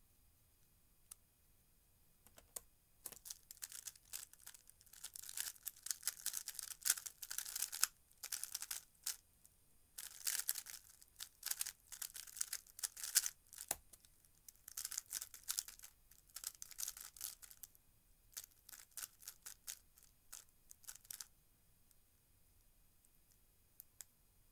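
3x3 speedcube being turned very fast, its plastic layers clicking and clacking in dense, rapid flurries with short pauses, from a few seconds in until near the end. About halfway through, a single low knock stands out, fitting a hand hitting the laptop keyboard to stop the timer at the end of the solve.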